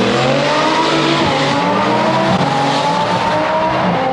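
Alpha 12 twin-turbo Audi R8 V10 accelerating at full throttle from a rolling start, loud, alongside a second race car. The engine note climbs in pitch and dips at upshifts about a second in and again past two seconds.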